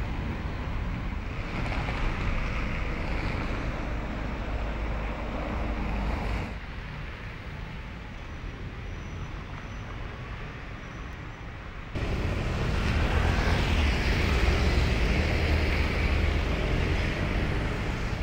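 Outdoor background noise with a low rumble, dropping suddenly about six and a half seconds in and rising again abruptly about twelve seconds in.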